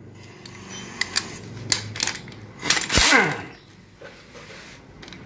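Metal hand tools clicking and clinking against an automatic transmission case as the inhibitor switch is unbolted, with a louder rasping burst about three seconds in.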